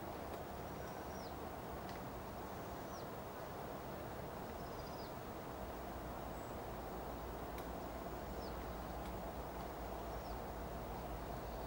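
Steady outdoor background hiss and hum, over which a bird gives a thin, high call again and again, about every one and a half to two seconds, each note dropping sharply at its end. A low rumble comes in about halfway through.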